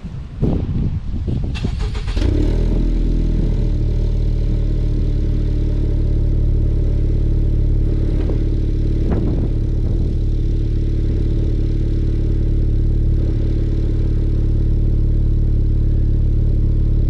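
Honda Civic Type R FK8's turbocharged 2.0-litre four-cylinder cold-starting through a Q300 cat-back exhaust. It cranks for about two seconds, catches, and settles into a steady idle, not too loud.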